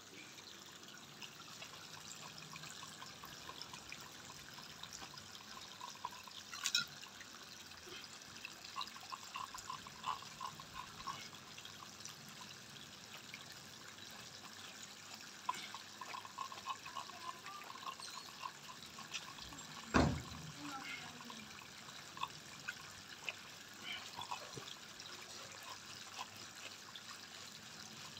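Water running and trickling from a garden hose onto brick paving while a wet puppy is lathered by hand, with scattered small ticks and one sharp knock about twenty seconds in.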